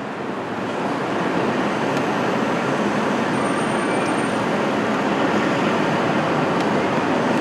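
City street traffic: a steady wash of vehicle noise that swells over the first second or so and then holds.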